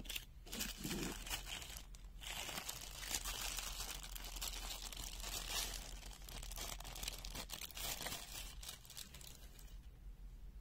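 Thin clear plastic bag crinkling and rustling as a pair of pliers is handled in it and slid out, a dense run of crackles that dies away near the end.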